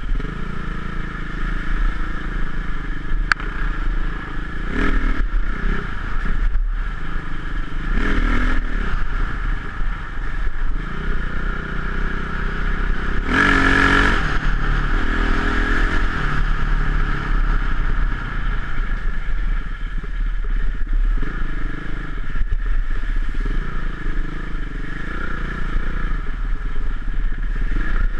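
Single-cylinder enduro dirt bike engine running and revving while riding a rough dirt lane, heard from a helmet-mounted camera. The revs swell to a loud burst about halfway through.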